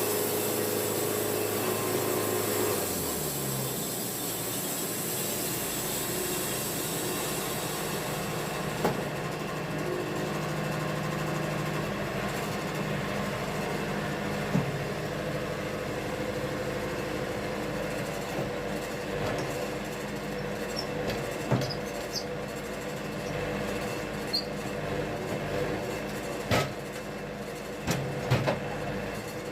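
Wood-Mizer LT70 sawmill running, with its low hum stepping down in pitch a few seconds in. A steady mechanical noise follows, with a few sharp knocks in the later part.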